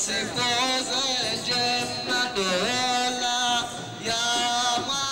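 Voices singing a traditional Comorian chant-like song, holding long notes that slide between pitches.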